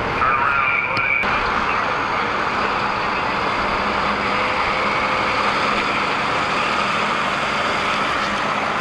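A large vehicle's engine running steadily, a constant hum and hiss, with a brief shift in the sound about a second in.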